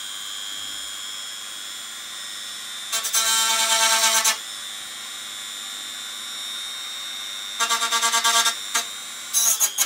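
Dremel rotary tool running with a steady high whine and pressed into the work three times, grinding louder each time: for over a second about three seconds in, then briefly near eight seconds and again near the end. It is grinding down a ridge to get the surface smooth.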